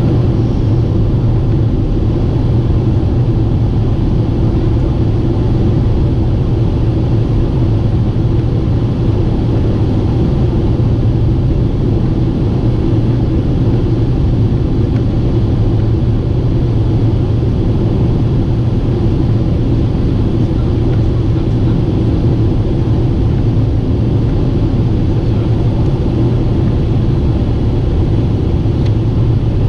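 Steady drone of a Boeing 747-8 airliner in flight, its engine and airflow noise heard from inside the cabin, strongest in a low hum and never changing.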